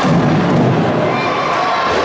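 Spectators cheering and shouting in a loud, steady crowd roar, with low thuds underneath.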